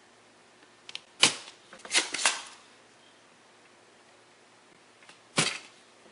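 Spring-loaded solder sucker (desoldering pump) firing and being cocked while removing solder from a fusible resistor's leads: a sharp snap about a second in, two more clicks about a second later, and another sharp snap near the end.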